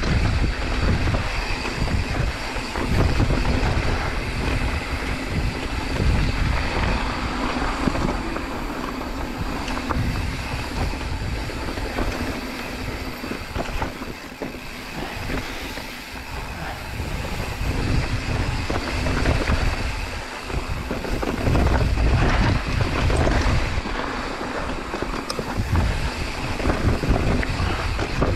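Mountain bike riding down a rough dirt trail: tyres rolling over dirt and rock, with constant small rattles and knocks from the bike. Wind buffets the microphone in gusts.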